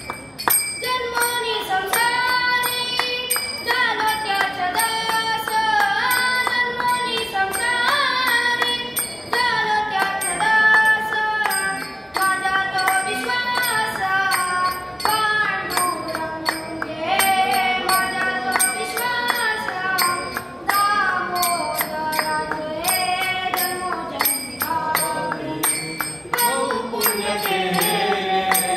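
A boy singing a devotional song into a microphone, his voice amplified, in long held notes that bend and slide. A steady beat of sharp strikes runs under the singing.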